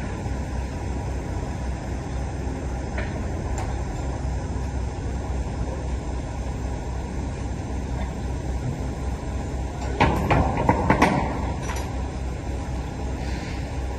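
Semi truck running with steady low engine and road noise. A brief cluster of loud clattering knocks comes about ten seconds in.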